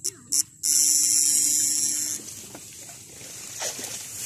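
Homemade high-voltage electric fishing shocker buzzing as its current is switched into the water: two brief blips, then held on for about a second and a half before it cuts off.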